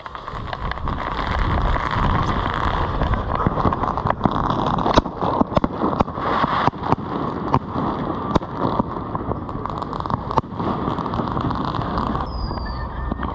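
Small ground fireworks burning after being lit: a steady hiss of spraying sparks, with many sharp crackles and pops scattered through it and a short, high, slightly falling whistle near the end.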